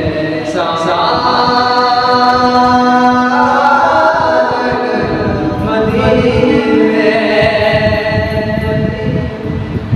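A man singing a naat (Urdu devotional poem in praise of the Prophet) without instruments, holding long notes.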